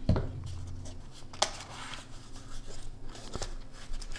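Small cardboard box being handled and its flap opened: a low knock near the start, then brief scrapes and light clicks of cardboard.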